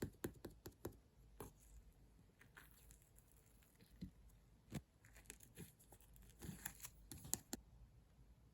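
Light-blue slime being squeezed and stretched by hand: faint, irregular sticky clicks and pops, with a few sharper snaps at the start, about five seconds in and about seven seconds in.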